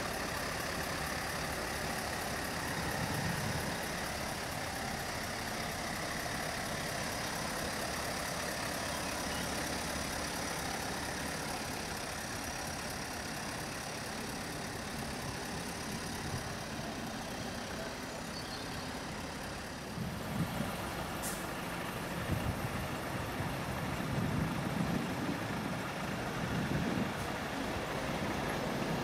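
Lorry engines running amid steady traffic noise. After about twenty seconds the low end turns uneven, with louder swells.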